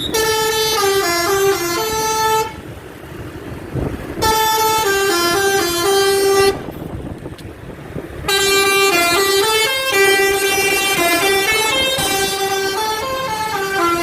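Bus telolet "basuri" melody horn, a multi-tone air horn playing a stepping tune. Three phrases, the first two about two seconds each with short pauses between, the third longer.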